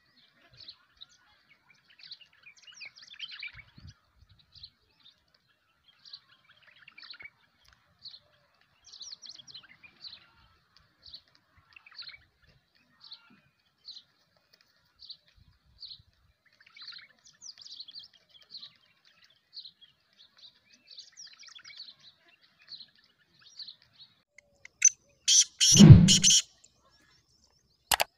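Black francolin chick, about two and a half months old, calling with short high chirps, about one or two a second. A loud rustling thump comes near the end.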